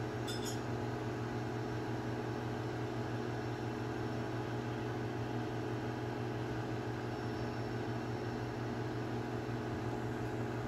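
Steady low machine hum with several constant tones. A brief high-pitched chirp comes about half a second in.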